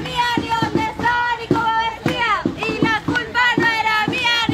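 Crowd of marchers chanting a protest slogan in unison, with loud, high-pitched shouted syllables in a steady rhythm.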